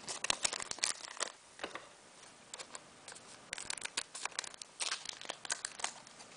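Pokémon booster pack foil wrapper crinkling and trading cards rustling as they are handled, in quick bursts for the first second or so, a short lull, then more crinkling from about three and a half seconds in.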